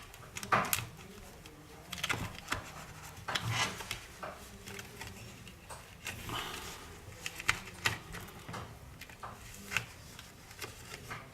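Scattered light clicks and knocks of small tools and parts being handled on a workbench, over a faint steady low hum.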